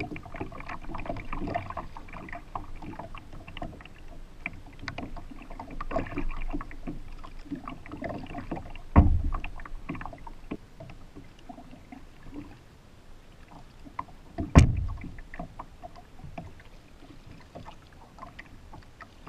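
Paddle strokes and water splashing and dripping around a stand-up paddleboard, with many small irregular splashes. Two heavier thumps on the board stand out, one about halfway through and another a few seconds later.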